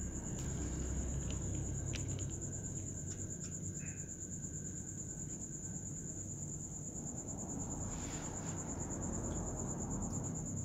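A steady, high-pitched insect trill that pulses rapidly and runs on without a break, over a low background rumble. A few faint clicks come through it, the sound of kittens crunching dry kibble from a tray.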